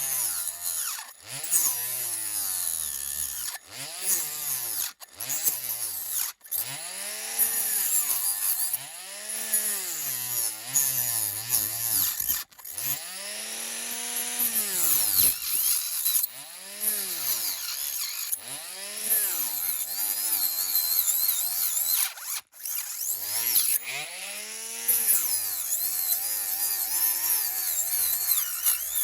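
Small handheld rotary tool cutting into a die-cast model, its motor pitch dipping and recovering over and over as the cutter bites and is eased off.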